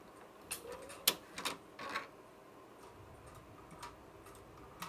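3D-printed Galileo escapement clock ticking as its plastic pawl, ratchet and escape wheel work: a few sharp, uneven clicks in the first two seconds, then fainter, more even ticks.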